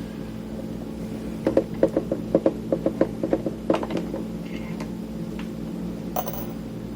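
A run of small, quick clicks and taps from a screwdriver working a screw out of the Tascam Portastudio 414 MKII's casing, starting about a second and a half in and lasting some two and a half seconds. A single click follows near the end.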